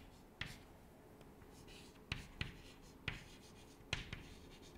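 Chalk on a chalkboard as words are written: a string of short taps and scrapes, with a brief scratch near the middle.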